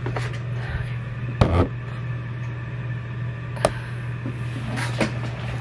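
Steady low hum, with a few short knocks and rustles of objects being handled, the loudest about a second and a half in.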